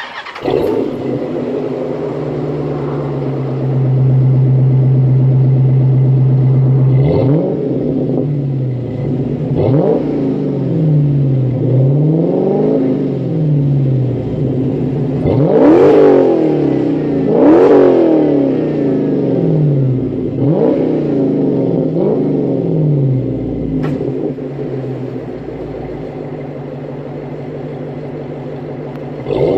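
392 Hemi V8 exhaust: the engine fires up about half a second in and runs at a fast idle. It is then revved in about seven quick blips that climb and fall back, and settles to a lower, steady idle.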